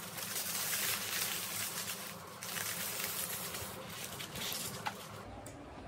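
Aluminium foil crinkling and rustling as it is peeled off a whole roast chicken by hand, a dense crackle that dies down near the end.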